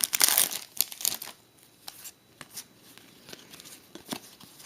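Foil trading-card pack wrapper crinkling as it is torn open, loud for about the first second, then a few soft clicks and rustles as the cards are handled.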